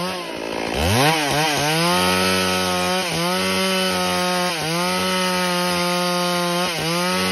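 Stihl two-stroke chainsaw cutting a felled log at full throttle. Near the start the engine pitch drops sharply and wavers, then revs back up and holds steady, sagging briefly a few times as the chain bites into the wood.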